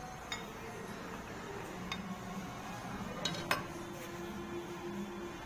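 Metal parts of a sewing-machine clutch motor's clutch housing clinking and clicking as they are handled and worked with a metal hand tool: a few sharp clicks, the loudest pair a little past three seconds in.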